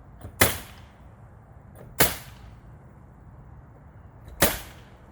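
Pneumatic coil nailer firing three times, driving 1.5-inch coil nails through fiber-cement lap siding. Each shot is a sharp crack with a short ring, the shots coming about one and a half and two and a half seconds apart.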